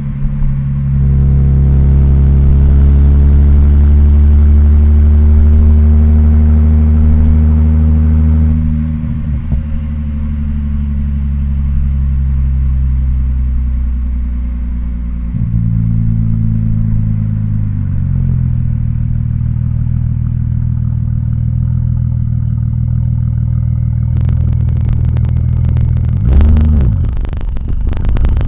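Tuned Audi S4 B5 twin-turbo V6 cruising under light load. The engine note is loud for the first several seconds, then drops and steps down in pitch a few times as the throttle eases. Near the end the revs briefly rise and fall, with a rapid fluttering chatter from the turbos.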